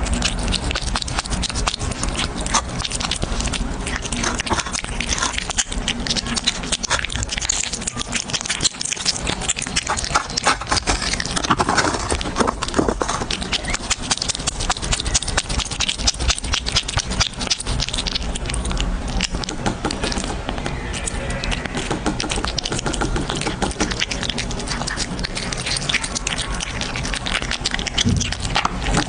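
Close-miked dense crackling, clicking and scraping from a cat, continuing without a break.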